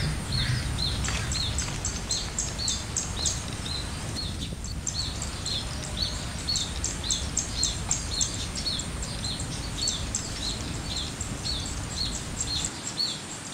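A bird calling a short, falling chirp over and over, about twice a second, with quicker high ticking and a steady high hiss behind it, over a low wind rumble.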